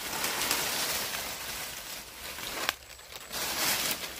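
Dry leaves and dead twigs rustling and crackling as a pile of leaf litter and brush is pushed aside by hand and trodden through, with one sharp snap about two and a half seconds in followed by a brief lull.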